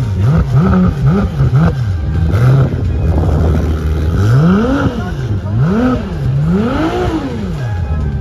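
Ferrari sports car engine revved while standing still. A run of short, quick throttle blips comes in the first two seconds, then three bigger revs, each rising and falling, about a second apart in the second half, with the engine idling between them.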